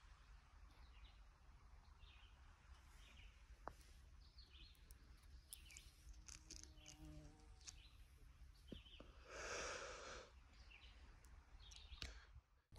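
Quiet shoreline ambience with small birds chirping again and again in the distance. A brief breathy rush of noise comes about three-quarters of the way through.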